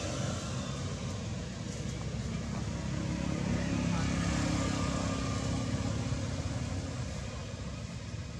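Steady low rumble of a motor vehicle engine, with a hum that grows about three seconds in and eases off near the end.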